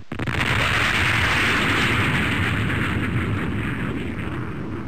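Sound effect of a jet breaking the sound barrier: a sudden loud blast that rolls into a rushing roar with a deep rumble, easing off over the next few seconds.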